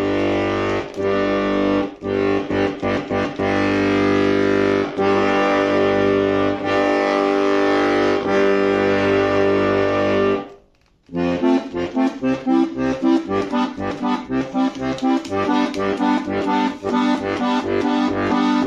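Bayan (Russian chromatic button accordion) played as a check after its reeds were recentered to cure a creaking bass G: held bass notes and chords for about ten seconds, a short break, then a quicker tune of short, detached notes over the bass.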